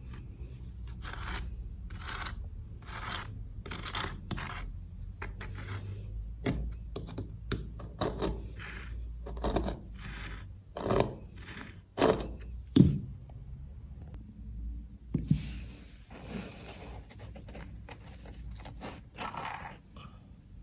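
Hand tools scraping and prying at an old carpet pad glued to the floor: a string of short scraping strokes about a second apart, with a few sharper knocks about halfway through.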